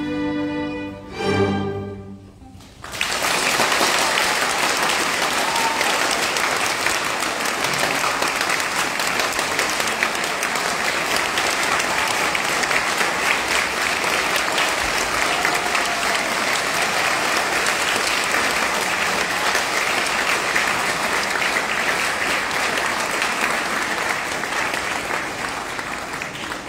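A string orchestra of violins and cellos holding its final chords, which end about two seconds in; after a short pause an audience breaks into steady applause.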